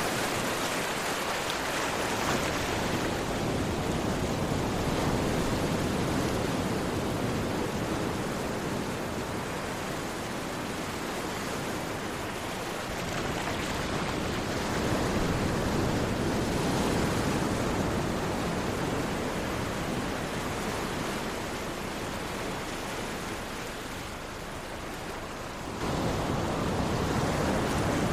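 Sea waves washing onto a shore: a steady surf noise that swells and eases slowly over several seconds, stepping suddenly louder about two seconds before the end.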